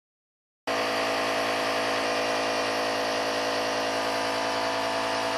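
Nebulizer air compressor running with a steady, even mechanical hum, starting just under a second in.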